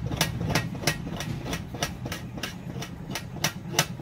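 Sharp, evenly paced clicks, about three a second, from hands working on a steel plate set on a bucket, over a steady low hum.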